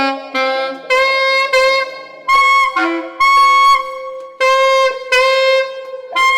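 Saxophone playing about eight short held notes, one after another, each about half a second long, over a steady lower tone that sounds between them.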